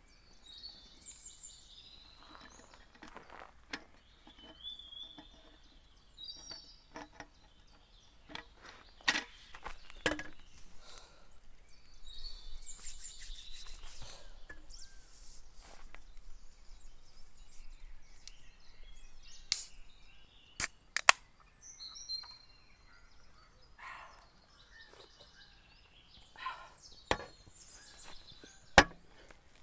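Birds chirping on and off outdoors, with intermittent sharp clicks and knocks, the loudest a few sharp cracks two-thirds of the way through and near the end.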